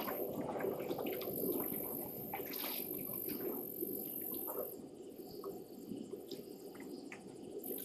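African elephants drinking at a waterhole: water splashing, trickling and dripping as they draw it up with their trunks and pour it into their mouths, in many small irregular splashes.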